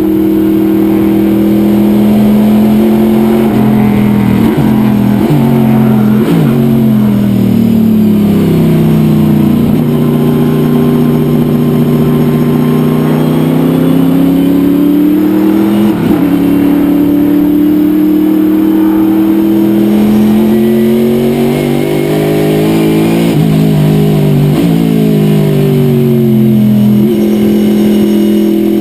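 Race-prepared Corvette C6 sports sedan's V8 engine heard from onboard, running hard at high revs. A run of downshifts with throttle blips comes about four to seven seconds in, then the revs climb as it drives out of the corner, with a sharp gear change about halfway and another set of downshifts near the end.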